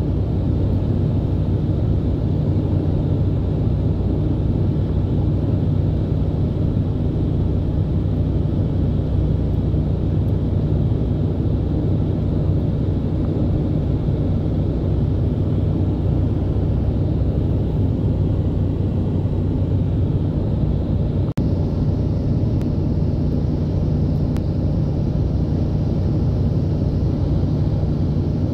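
Steady low rumble of road and engine noise inside a moving car's cabin. The sound drops out for a moment about three-quarters of the way through, and a little more hiss follows.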